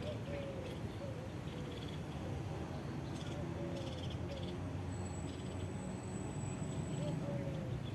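Nature ambience: a steady low rumble with faint, short, falling animal calls about once a second, and a thin high steady tone from about five to seven seconds in.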